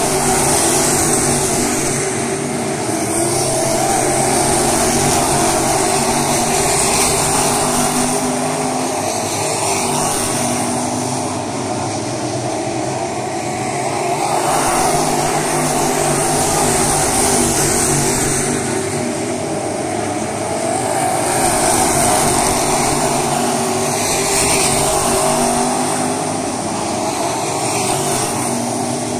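A field of crate-engine dirt late model race cars at racing speed, their V8 engines running at high revs, the sound swelling and fading several times as the pack comes past and goes around the oval.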